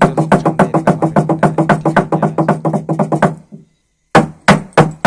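Konyak log drum, a hollowed tree-trunk slit drum, beaten fast with handheld wooden beaters, about six strokes a second, each with the same low hollow note. The beating stops about three seconds in and, after a short break, starts again.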